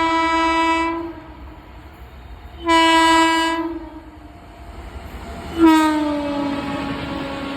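Indian Railways Shatabdi Express locomotive horn sounding three blasts. The first ends about a second in, the second is short and about a second long, and the third slides down in pitch and fades away.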